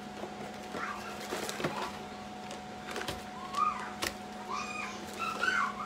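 Plastic rustling and clicks as a zipper freezer bag is pulled from its cardboard box, over a steady hum, with several short high chirps or whistle-like calls from an unseen source.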